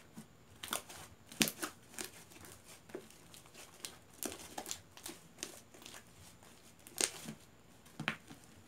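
Fluffy slime being kneaded and stretched by hand, giving irregular sticky pops and crackles as it is folded and pulled.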